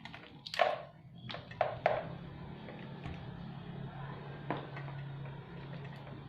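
Sharp clicks and knocks from handling the parts and fittings of a pressure washer, several close together in the first two seconds and one more about four and a half seconds in. From about two seconds in there is a faint steady low hum.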